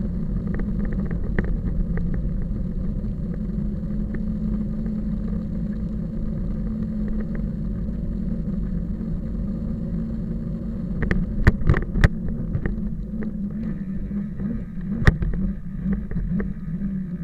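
An engine running steadily, with a few sharp knocks about eleven to twelve seconds in and one more near fifteen seconds.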